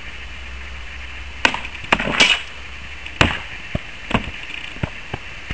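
Swords striking wooden shields in a sparring bout: about eight sharp, irregular knocks, the loudest a little over two seconds in.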